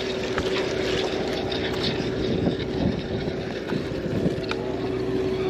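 A sportfishing boat's engine running steadily, a constant drone heard on deck, with a few light clicks over it.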